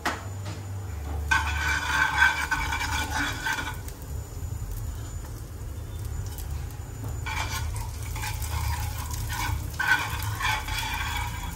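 A metal spoon stirring and scraping cumin seeds in hot oil in a steel frying pan. It comes in two spells, the first about a second in and the second from about seven seconds in until near the end, over a low steady hum.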